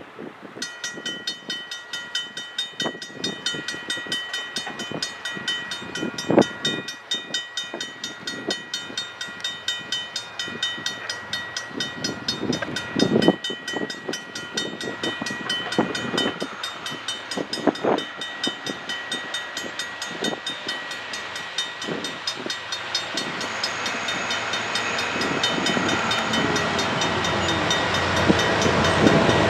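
CN freight train led by an ET44AC diesel locomotive approaching: a steady high-pitched ringing whine from the wheels and rails with irregular knocks. Over the last several seconds the whine fades under a rising rumble of the locomotives and wheels as the train draws near.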